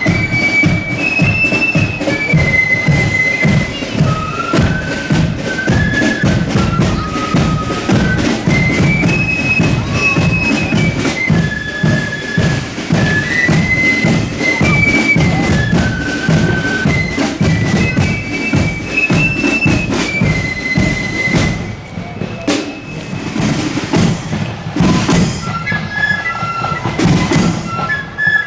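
Marching flute band playing a tune: a high melody from the flutes over steady, heavy drumming. The drumming thins briefly about three-quarters of the way through.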